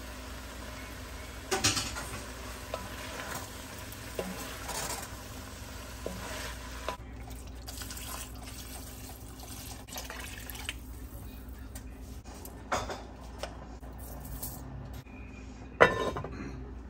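Kitchen pot sounds at an enamelled cast-iron Dutch oven: a few light knocks from a wooden spoon and strainer against the pot, broth poured in, then a sharp clank about a second before the end as the lid is set on, the loudest sound.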